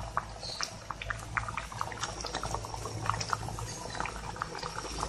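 Thick mung bean stew simmering in a pan, with many small irregular bubbling pops.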